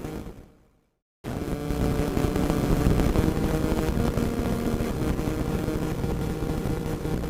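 Radio static: a rough, crackling hiss with a few faint steady tones in it. It fades out within the first second, drops to silence briefly, then comes back suddenly at full level.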